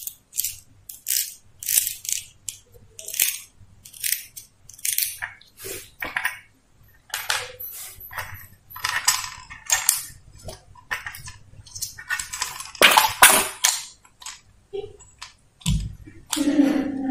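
Irregular short scrapes, clicks and rubs of plastic parts being handled as a fan regulator is fitted into the slot of a plastic extension board, with a couple of duller knocks near the end.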